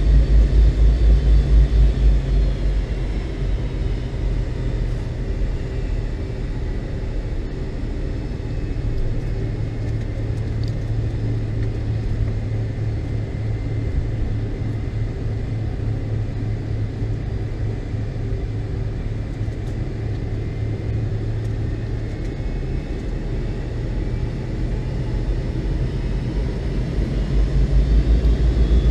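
Steady drone of a McDonnell Douglas MD-82's rear-mounted Pratt & Whitney JT8D jet engines heard inside the cabin, with a low throbbing rumble that is heaviest in the first two seconds and again near the end.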